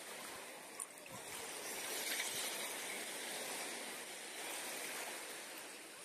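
Sea surf washing onto a sand beach: a steady rushing hiss that swells about two seconds in and then eases off. A brief click just under a second in.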